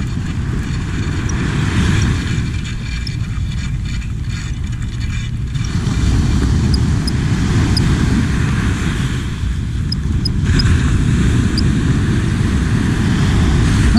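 Wind buffeting the microphone over the wash of small waves breaking on the beach, with spells of fine rapid ticking from a spinning reel being wound in, around two to five seconds in and again near ten seconds.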